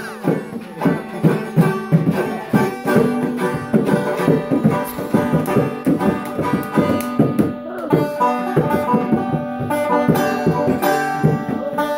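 Bongo drums played by hand in quick, busy strokes, together with a banjo playing notes over them.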